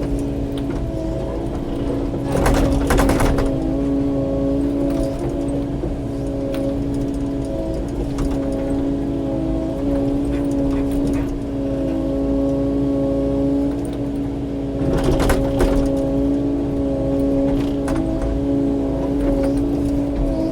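Kubota KX080-4 excavator's diesel engine running steadily under hydraulic load, a constant hum. Twice, about two and a half seconds in and again about fifteen seconds in, a louder stretch of scraping and knocking comes as the bucket works through rock and brush, with a few lighter knocks between.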